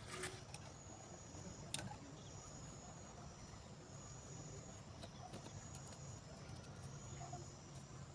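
Faint high-pitched insect trilling, coming in spells of about a second with short gaps, over a low steady hum. A couple of light clicks sound in the first two seconds.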